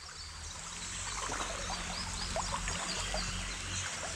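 Creek water running and trickling, a steady rushing with many small bubbling gurgles.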